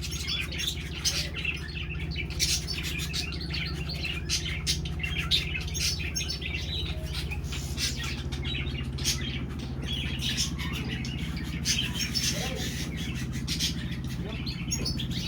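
Cage birds (canaries, budgerigars and goldfinches) chirping and twittering together in quick, overlapping calls, over a steady low hum.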